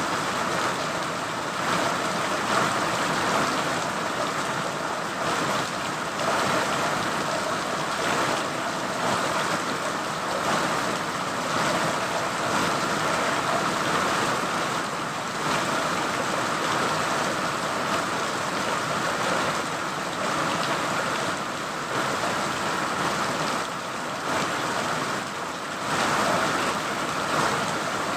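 Steady rain falling: an even, unbroken rush with gentle swells in loudness.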